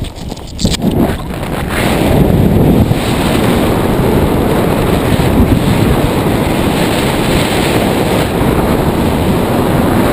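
Wind rushing over a helmet-camera microphone during flight under an open BASE-jump parachute. Briefly quieter in the first second or so, then a steady rush.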